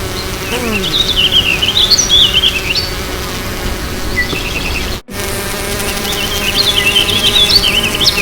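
A steady insect buzz, like a bee, with high twittering chirps over it. The pattern drops out for an instant about five seconds in and repeats, like a looped sound effect.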